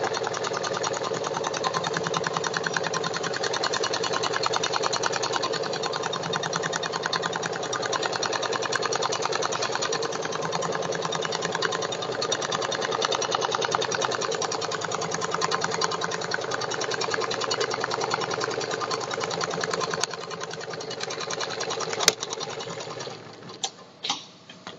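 Richpeace automatic pattern sewing machine stitching a sofa-bed panel, its needle running in a fast, even stream of strokes. Near the end there is a sharp click, the machine stops, and a few separate clicks follow.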